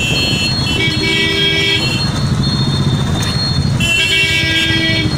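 Motorcycle horns honking over the steady running of a pack of motorcycle engines. Two long blasts, each about a second long, come about a second in and again near four seconds in.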